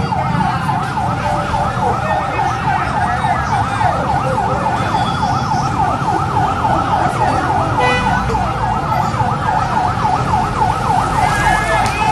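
Fire truck siren on a fast yelp, its pitch sweeping up and down several times a second without a break, over a steady low rumble.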